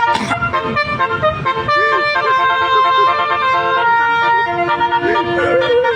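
Indonesian bus 'telolet' multi-tone horn playing a tune of held notes that change pitch every second or so.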